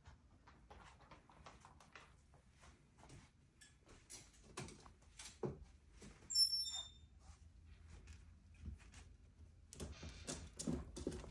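Metal wire pet cage door being handled and opened: scattered light clicks and rustles, then a sharp clank about six seconds in with a brief high metallic ring.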